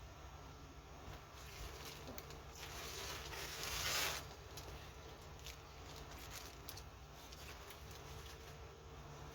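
Faint handling of plastic packaging: soft scattered ticks, and one rustle that swells and cuts off about four seconds in.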